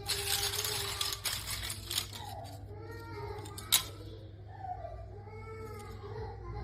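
Phone motherboards being handled: rustling and small clicks for the first couple of seconds, then a sharp click a little under four seconds in. Faint voices can be heard in the background over a steady low hum.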